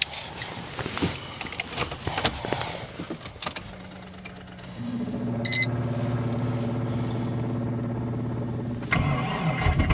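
Cold start of a Subaru EJ206 flat-four after a week at −35 °C: a few clicks and rattles, then the starter cranking slowly and steadily for about four seconds, with a short high beep partway through, before the engine catches and runs rough about nine seconds in.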